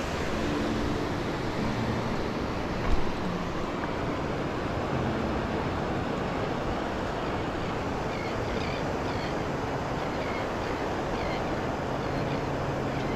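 Wind on the microphone and surf washing in on the beach, a steady rushing noise, with one thump about three seconds in and faint short high chirps in the second half.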